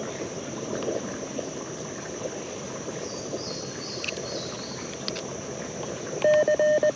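A steady hiss, then about six seconds in a loud Morse code tone starts keying dashes and dots from a QRP CW radio (LNR Mountain Topper MTR4B) through a small portable speaker.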